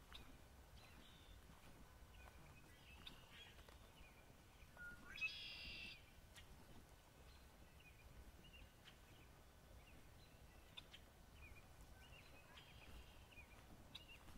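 Faint outdoor marsh ambience with scattered small bird chirps and one louder bird call lasting under a second about five seconds in.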